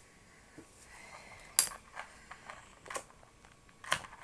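Metal clicks and clinks from handling a Zippo lighter during a flame trick: two sharp clicks, one about a second and a half in and one near the end, with softer ticks between.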